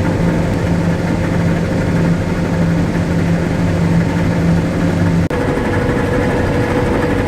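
Steady running drone of a Claas Lexion 740 combine harvester, heard from inside the cab while harvesting soybeans. After a brief dropout about five seconds in, the low hum gives way to a higher steady tone.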